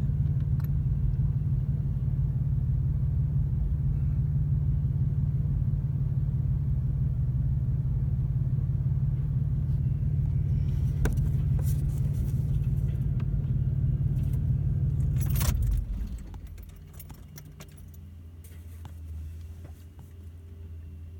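Vehicle engine running steadily with a low rumble, with a few clicks and rattles. It cuts out abruptly about sixteen seconds in, leaving a quieter low hum.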